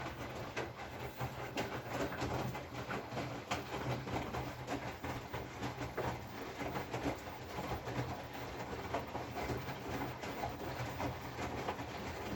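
Whirlpool FFB8469BVBE washing machine running, with a steady low motor hum and irregular light clicks and knocks from the turning drum.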